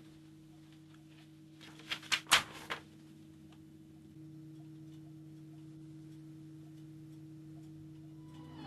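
A sheet of paper is pulled off a poster: four sharp paper crackles in quick succession about two seconds in, the third the loudest, over a steady low electrical hum.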